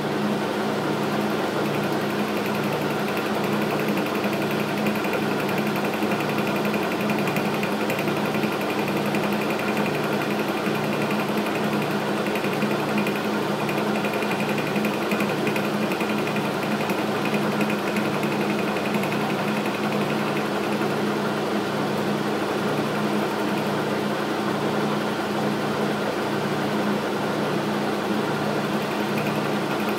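Logan metal lathe running under power while its carbide tool takes a cut in the part turning in the chuck: a steady machine hum and cutting noise, with a low, even pulse about once a second.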